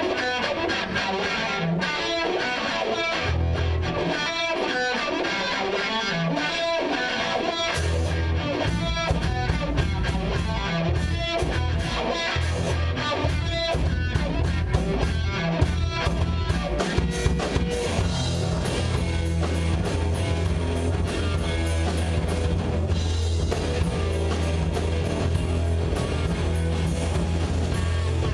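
Live rock band playing an instrumental passage with no singing. Electric guitar carries it at first, and the drum kit and bass come in hard about eight seconds in, driving on steadily from there.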